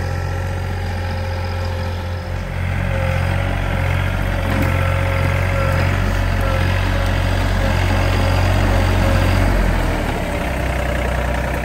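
John Deere tractor engine running steadily while back-dragging dirt with a box blade: a low hum with a constant whine above it.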